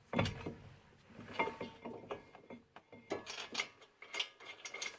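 Hand socket ratchet clicking in short, irregular strokes with light metallic clinks as a 17 mm brake caliper bracket bolt is run in. The clicks come closer together from about halfway through.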